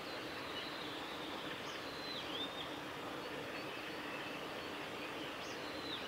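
Male blue-and-white flycatcher singing: high, clear whistled phrases, one about two seconds in and another starting near the end, over a steady background hiss.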